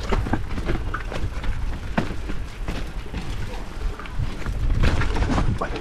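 Mountain bike riding a dirt trail: tyres rumbling and the bike rattling and clicking over bumps, with a steady low wind rumble on the microphone.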